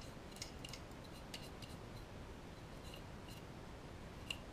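Paintbrush wet with a methylated-spirit wash scrubbing over the end of a plastic O gauge model wagon: faint, irregular light scratches and ticks of the bristles and the wagon's plastic, with one sharper tick near the end.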